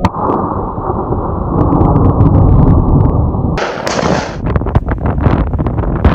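A sudden loud gunshot, then heavy wind buffeting on the microphone with scattered clicks.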